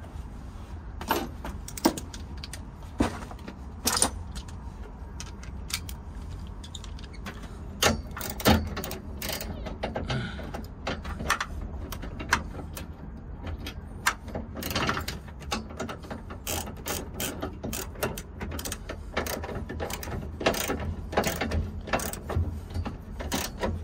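Hand ratchet wrench clicking in runs of strokes as the mounting bolts of a rear strut tower bar are tightened down, with a few sharper metal knocks among the clicks. The clicking comes thick and fast in the second half.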